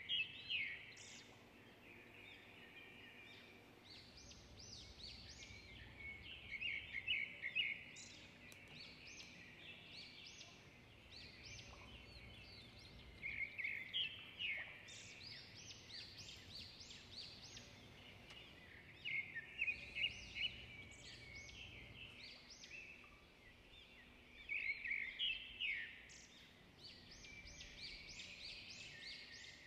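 Birds chirping, in recurring bursts of quick high notes roughly every six seconds, over a faint steady hiss.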